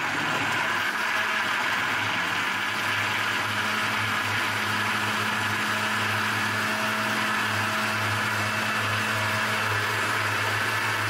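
Electric blender running steadily at full speed, grinding chopped papaya, water, milk and ice cubes into a smooth juice, with a constant low motor hum under the whirr.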